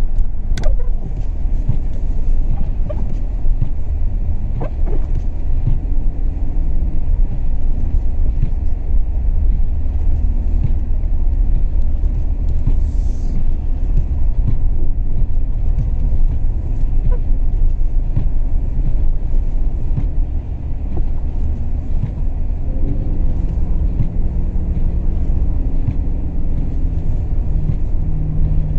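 Strong wind buffeting the microphone: a heavy, uneven low rumble with scattered clicks. A steady low hum joins near the end.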